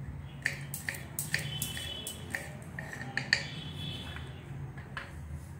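Kitchen knife chopping garlic cloves on a wooden cutting board: a dozen or so sharp, irregular taps of the blade striking the board.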